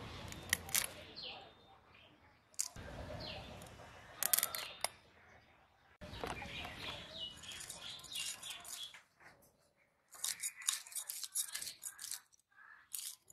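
Scratchy scraping clicks as scales are scraped off a small fish against a curved boti blade, the loosened scales flicking onto a plastic sheet. Birds chirp a couple of times in the background.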